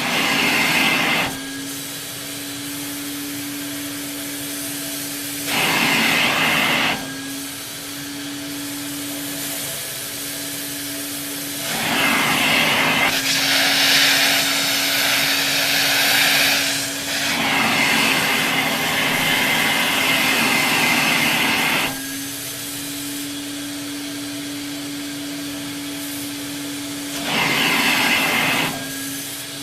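Canister vacuum cleaner with a Lamb electric motor running with a steady low hum. Several times the rush of air through it swells loudly for a second or two, once for several seconds; the air noise is louder than the motor.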